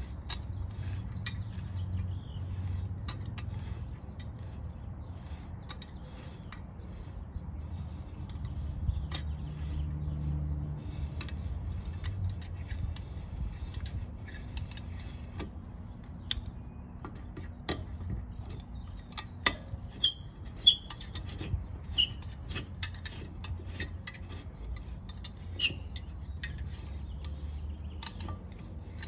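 Vise-grip locking pliers clamped on a one-way security screw, turning it out: scattered small metal clicks and a few sharp metallic clinks about two-thirds of the way through, over a low handling rumble.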